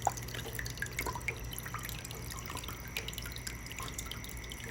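Small homemade aquarium waterfall running: water trickling and dripping in many small, irregular drops over a steady low hum.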